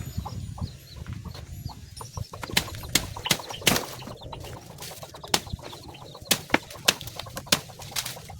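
Irregular sharp knocks, two or three a second, starting about two and a half seconds in. Faint high bird chirps come in the first second or so.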